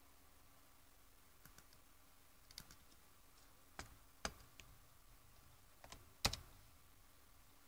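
A few irregular keystrokes and clicks on a computer keyboard, seven or so in all, the loudest about six seconds in.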